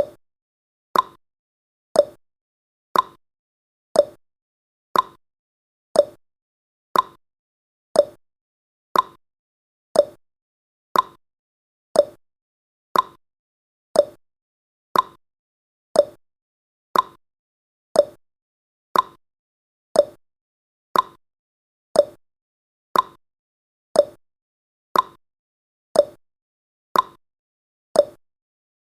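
Countdown timer's ticking sound effect: one short, sharp tick every second, evenly spaced, each dying away quickly.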